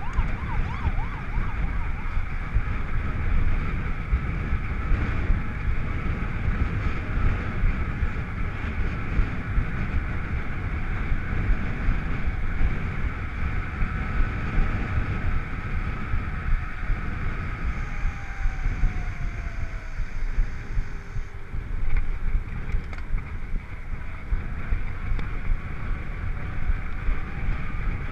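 Wind buffeting an action camera's microphone while riding a mountain bike at speed on tarmac, with the steady hum and rumble of the tyres rolling.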